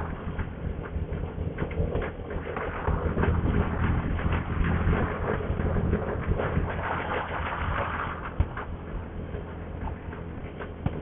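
Motorcycle engine running steadily while riding, under constant wind and road noise on the rider's microphone.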